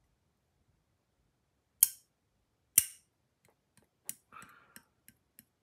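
Small hard parts of a disassembled folding knife being handled: two sharp clicks about a second apart, then a run of lighter taps and a brief scrape.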